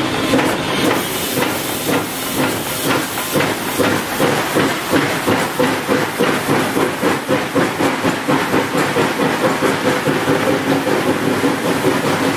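Narrow-gauge Baldwin 4-6-0 steam locomotive No. 12 working along the line, heard from inside its cab: a loud hiss of steam at first, then steady exhaust beats of about two and a half a second over the running noise of the engine.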